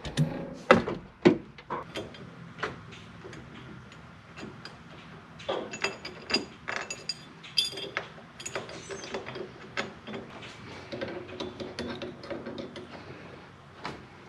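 Socket ratchet wrench clicking in irregular runs while the steering wheel's retaining nut is unbolted, with scattered metallic knocks of the tool against the column.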